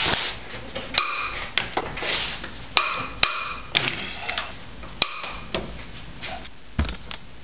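Irregularly spaced sharp metallic clinks, each ringing briefly, from a wrench working the bolts of a car's engine mount, with softer scraping and handling noise between them.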